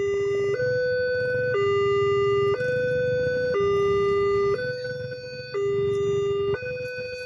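Railway level-crossing warning alarm sounding an electronic two-tone signal, alternating between a higher and a lower note about once a second. It is the warning that a train is approaching.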